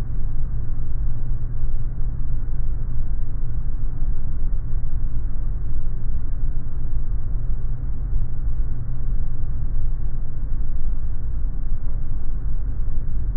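Steady deep rumble of an airliner in flight on final approach with its main landing gear extended: airflow and engine noise, with no touchdown yet.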